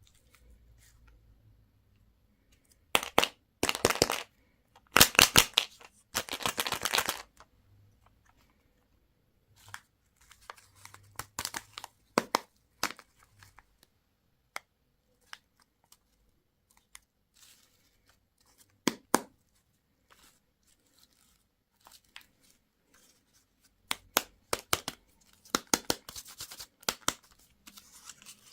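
Candy wrappers and packaging being torn open and crinkled. A few loud rips come about three seconds in, followed by scattered crinkles and small clicks, which thicken again near the end.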